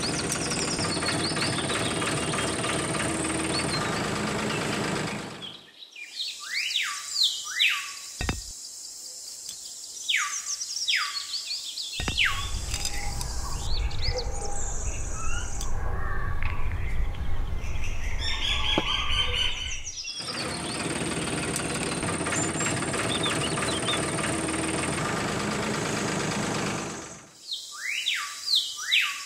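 Birds chirping in clusters of short, quick falling calls, alternating with stretches of dense steady hiss carrying a high whine; the same sequence comes round again, like a looped outdoor ambience track.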